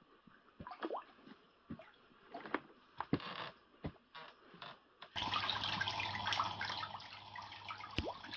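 Scattered small drips and plops of water at a pond surface. About five seconds in, this gives way suddenly to a steady sound of running, trickling water with a low hum underneath.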